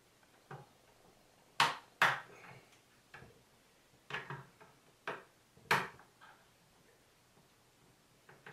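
Irregular sharp plastic clicks and taps with quiet between them, from fingers prying at the small retaining clips on a water ionizer's hose fitting while trying to pop them off by hand. The clips do not come free.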